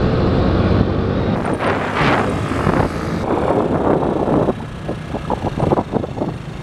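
Motor scooter engine running at riding speed, heard under heavy wind rush on the microphone. The wind buffeting turns choppy in the second half.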